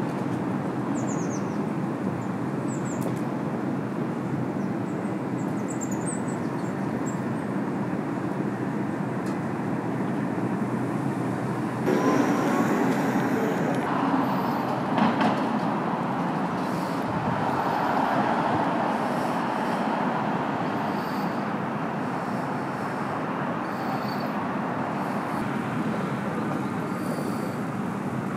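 Steady urban traffic rumble, with a few faint high chirps in the first seconds; the rumble gets louder about twelve seconds in.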